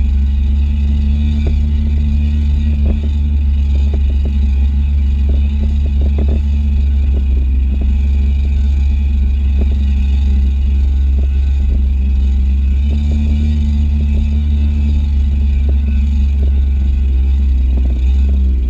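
Kawasaki stand-up jet ski's two-stroke engine running steadily at speed, with scattered short knocks as the hull meets the water.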